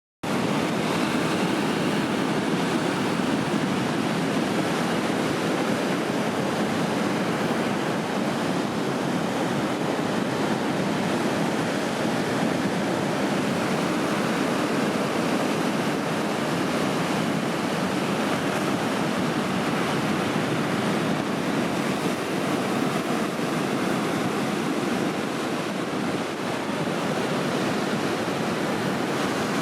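Ocean surf: a steady rush of breaking waves, with wind on the microphone. It cuts in abruptly right at the start.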